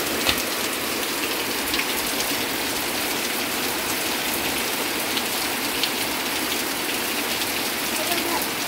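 Heavy rain falling steadily, with scattered sharper drop hits now and then.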